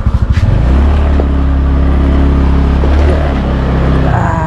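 Motorcycle engine idling with rapid even pulses, then held at a higher steady speed for about three and a half seconds before dropping back to idle near the end.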